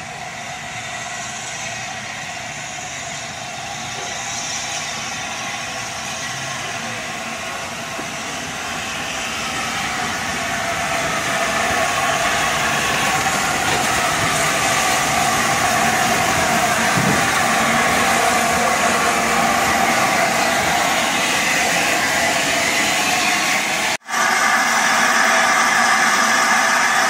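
LNER A4 Pacific steam locomotive 60007 Sir Nigel Gresley running past, a steady mechanical noise that grows louder as it comes close. The sound cuts out for an instant near the end and then carries on just as loud.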